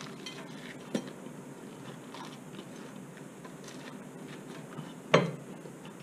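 A person biting into and chewing a bread-roll sandwich, faint mouth and crust sounds with a few small clicks. A short louder knock comes about five seconds in.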